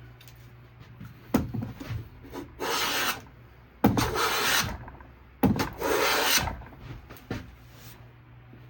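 Hand plane taking three strokes along a wooden board, each a rasping shave of about a second that starts with a sharp knock. A few lighter knocks come before the first stroke.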